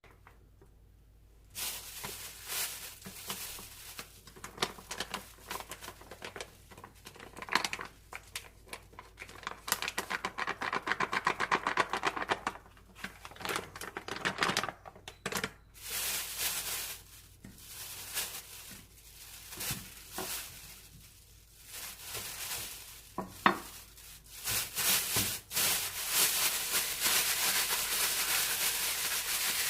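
Kitchen food-preparation sounds: utensils and dishes clattering in short scattered knocks, with a fast run of taps about ten seconds in, and a steady hiss in the last few seconds.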